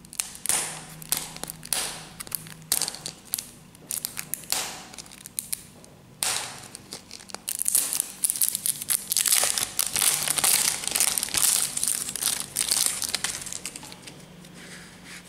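Thin plastic shrink-wrap label being torn and peeled off a plastic surprise egg, crinkling and crackling in short bursts, then in a dense continuous run about halfway through.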